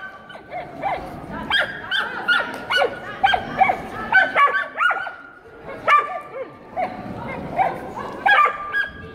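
A dog barks over and over in short, high yips, about two a second, with a brief lull about halfway through.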